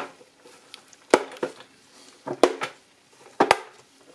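Clear plastic lens cover of a car instrument cluster being pressed on by hand, its clips snapping into place: a sharp plastic click about a second in, another about two and a half seconds in, and a quick pair of clicks near the end.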